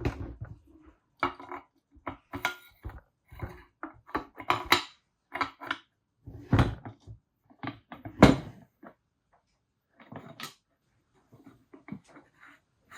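Irregular clinks and knocks of metal parts and hand tools being handled and set down, some with a brief metallic ring.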